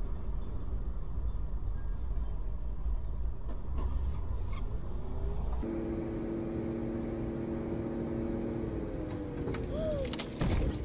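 Steady engine and road rumble inside a moving car. About halfway through it gives way to a held tone with several steady pitches that bends down after a few seconds. Near the end comes a loud, sudden bang, a vehicle collision.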